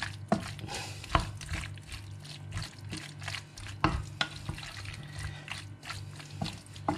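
Wooden spatula stirring a thick meat, mushroom and sour-cream mixture in a stone-effect nonstick pot, with irregular scrapes and knocks of the spatula against the pot, over a steady low hum.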